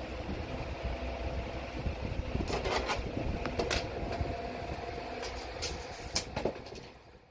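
A steady mechanical hum in the room, with a handful of sharp clicks and light knocks as a steel straightedge and tape measure are handled on a plywood subfloor, a small cluster about a third of the way in and single ones later.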